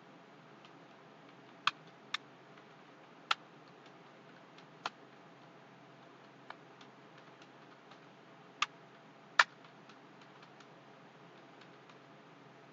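Computer keyboard keys clicking at an irregular, unhurried pace: a handful of louder keystrokes among many faint taps, over a steady low hiss.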